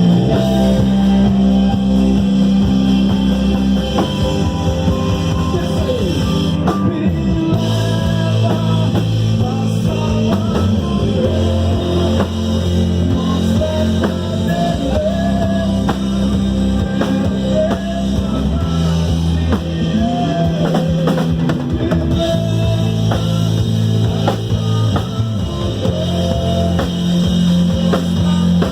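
Live worship band playing an instrumental passage in a rock style: drum kit, electric guitars, bass guitar and keyboard, with a lead melody moving over sustained bass notes.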